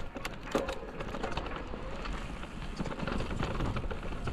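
Mountain bike riding along a dirt forest trail: tyre noise with irregular knocks and rattles from the bike over the ground.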